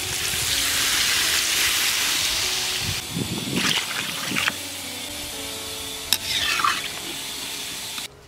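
Water poured into a hot pan of potatoes fried in mustard oil and spice paste, hissing and sizzling hard for about three seconds. The hiss then settles into quieter bubbling, with a few stirring or pouring noises and a single click, and cuts off abruptly near the end.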